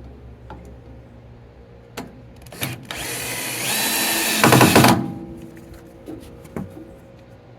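Screw gun driving a screw into a pressure-treated wooden strip: a few knocks, then the motor spins up with a rising whine about three seconds in and runs for about two seconds, loudest in a fast rattle just before it stops as the screw seats.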